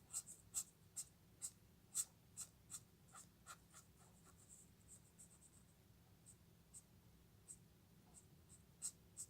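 Faint, quick strokes of a Chameleon alcohol marker's nib on paper, colouring in small areas. There are about two or three strokes a second at first, thinning out to scattered ones after about four seconds.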